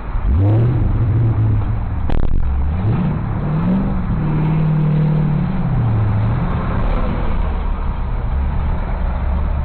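Highway traffic with a vehicle engine whose pitch rises, holds, rises again and then falls, and a single sharp knock about two seconds in.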